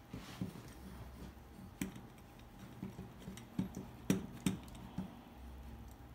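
Handling noise of metal airbrush fittings: a handful of light clicks and taps as the small cordless compressor is fitted onto the tee with the pressure gauge, the sharpest about four seconds in.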